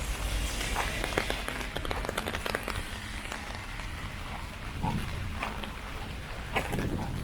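Heavy rain drumming on an umbrella, a steady hiss with many fine drop ticks, and two short louder sounds about five and six and a half seconds in.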